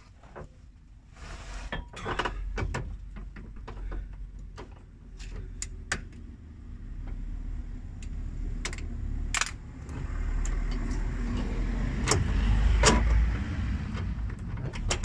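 Irregular metal clicks and clinks of a long-handled spanner working a seized, stretching rear-axle-beam bolt loose by hand under a car, over a low rumble of handling, and louder about ten seconds in.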